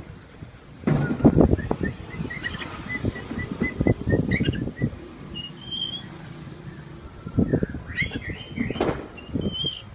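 Caged oriental magpie-robin giving short, high chirping notes, including a quick run of even notes, amid bursts of rattling and fluttering as the bird moves about and shakes its cage.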